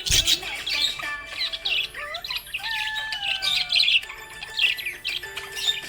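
Budgerigars chirping and warbling: a rapid run of short chirps mixed with a few whistled notes that slide up and down.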